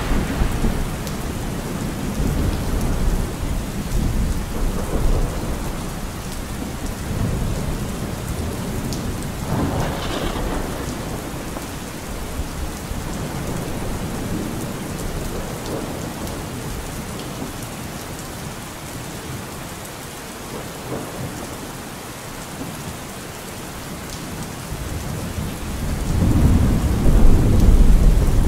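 Steady rain with rolling thunder; a deep rumble swells near the end.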